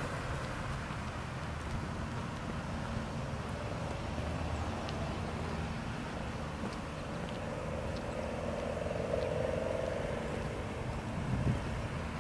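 Outdoor ambience: a steady low rumble of distant vehicles, with a faint engine drone that swells and fades a few seconds before the end.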